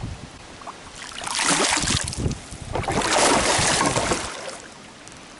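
A hooked fish thrashing and splashing at the water's surface beside the boat, in two long bursts of splashing: one about a second in and a longer one in the middle.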